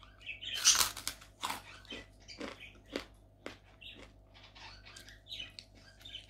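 Fried kerupuk crackers being bitten and chewed: irregular crisp crunches and crackles, some sharper snaps among them.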